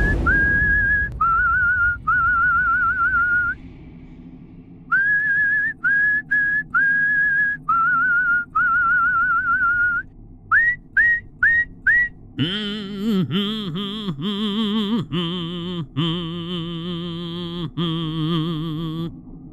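Soundtrack music led by a whistled tune: single pure notes with a slow waver, in short phrases, then four quick upward-swooping whistles. About twelve and a half seconds in, a lower, fuller wavering tone takes over in held notes.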